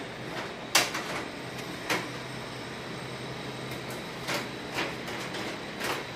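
Plastic mesh air filter of a split AC indoor unit being handled and fitted into its slots: a few sharp plastic clicks and rattles, the loudest about a second in, over a steady background hum.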